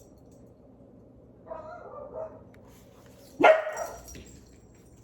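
A pet dog barks once, loud and sharp, about three and a half seconds in, after a quieter pitched sound about a second and a half in.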